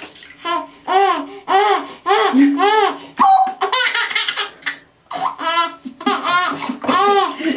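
A baby laughing in a run of short, high, rising-and-falling squeals, about two a second, with a brief pause about two-thirds through.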